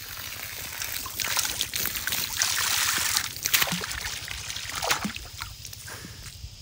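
Water from a garden hose running into a plastic bucket, splashing and trickling steadily, a little louder in the middle.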